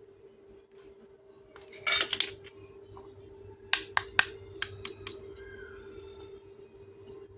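Small toy kitchen pieces being handled: a short scrape about two seconds in, then a run of sharp clicks and clinks as pieces are set down and knocked together, with one more click near the end, over a steady low hum.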